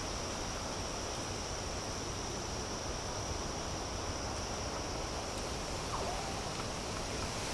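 Outdoor bird ambience: a steady rushing background with a constant high-pitched insect drone, and a few faint short bird chirps about six seconds in.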